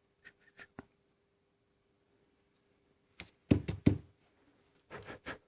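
Light clicks, then a cluster of sharp knocks about three and a half seconds in and a few more near the end: small hard objects being handled and set down.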